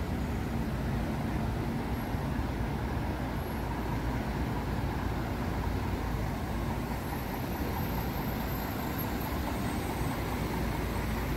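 Steady city street traffic noise: engines of passing buses, cars and scooters with a low rumble.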